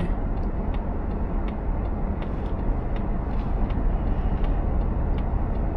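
Road noise inside a moving car: a steady low rumble of engine and tyres, with faint ticks about twice a second.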